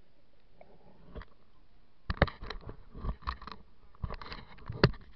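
Irregular knocks, clicks and scrapes of the underwater camera being handled as it is lifted out of the river, starting about two seconds in, with the sharpest knocks just after that and again near the end.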